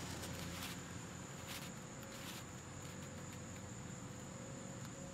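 Faint steady room tone: a continuous high-pitched whine or trill over a low hum, with a few faint clicks.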